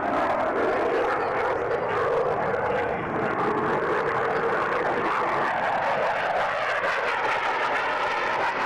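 Delta-wing fighter jet's engine noise as it flies a display pass, a steady loud roar. Partway through, its tone shifts in slow sweeps.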